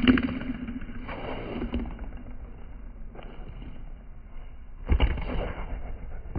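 Handball being hit during a rally on a walled concrete court: two sharp hits, one right at the start and one about five seconds in, over a steady low rumble.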